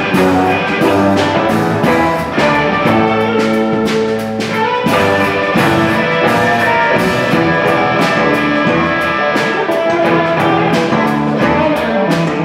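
A small band jamming: a semi-hollow electric guitar playing over a keyboard, with long held notes and chord changes every second or two.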